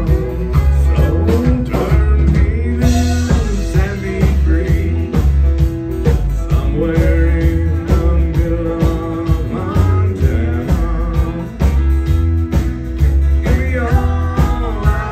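Live country band playing a song: a steady drum beat, bass, acoustic and electric guitars and fiddle, with vocals.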